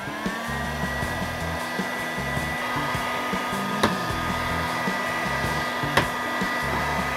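Electric heat gun blowing hot air, its motor whining up to a steady pitch as it starts and then running evenly. Two sharp knocks come partway through.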